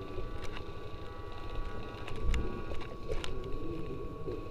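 Low rumble on the microphone, with a few faint sharp clicks about half a second, two seconds and three and a quarter seconds in, over a faint steady high whine.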